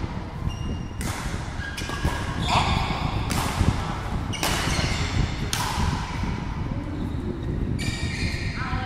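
Badminton rally: sharp racket-on-shuttlecock hits every second or so, each ringing on in a large hall, with brief squeaks of shoes on the court between the strokes.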